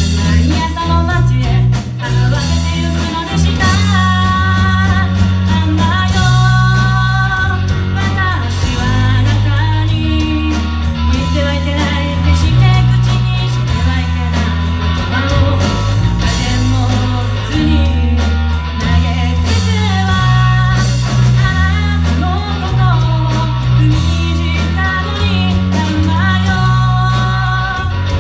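A live band playing a song: a singer on a microphone over electric guitars, bass and drums.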